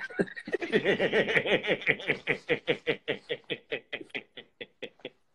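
A man laughing: a long run of quick ha-ha pulses that gradually slow and fade near the end.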